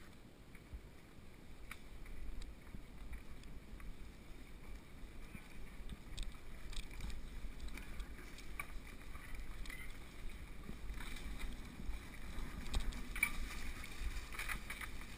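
Mountain bike rolling fast down a dirt singletrack: a steady rush and rumble of tyres and air on the camera, with scattered clicks and knocks from the bike over roots and stones, growing louder toward the end.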